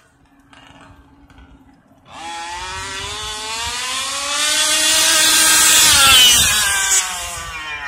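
Two-stroke gas engine of an HPI Baja 1/5-scale RC buggy: it runs faintly at first, then about two seconds in it is throttled up into a loud, high-revving buzz that climbs in pitch. The buzz is loudest as the buggy drives past at about six seconds, then drops in pitch and fades as it moves away.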